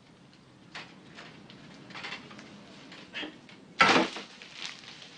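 Household knocks and clatter: a few light knocks, then one loud clatter about four seconds in.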